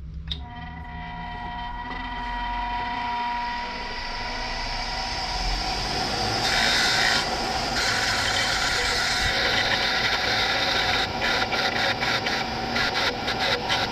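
Abrasive rubbing and scraping on a workpiece, growing louder and breaking into quick repeated strokes near the end. It opens with a click and a few faint tones that die away.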